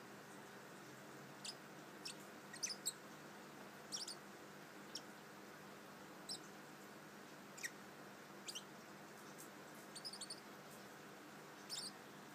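Bourke's parrot giving short, soft, high chirps at irregular intervals, roughly one a second, over a faint steady hiss.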